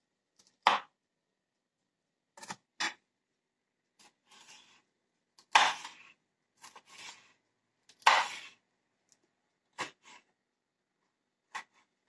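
Kitchen knife cutting a red pepper on a wooden cutting board: about a dozen uneven knocks of the blade on the board, three of them much louder than the rest.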